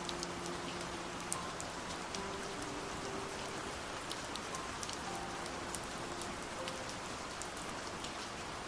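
Steady rain falling: a continuous hiss with individual drops ticking on a surface. Faint soft held tones come and go underneath.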